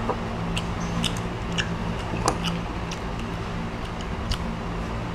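Eating at a table: scattered small clicks and ticks, roughly one a second, from hands working grilled shrimp and dishes, over a low steady hum.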